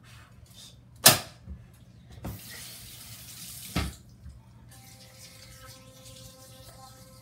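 A sharp knock about a second in, then a bathroom sink tap running for about a second and a half and stopping with a thud.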